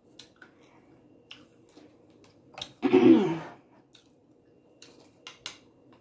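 Eating sounds: soft clicks of chewing and a spoon, broken about three seconds in by one loud, short vocal noise from the eater that falls in pitch, like a throat clearing or cough.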